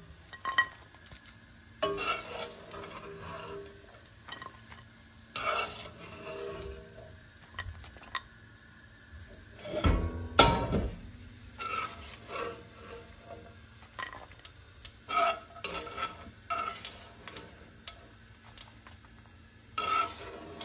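Metal slotted spoon scraping and clinking against a nonstick wok as fried almonds and cashews are scooped out of hot ghee onto a plate, with a faint sizzle of the ghee. A heavier knock comes about ten seconds in as the wok is tipped on the gas burner grate.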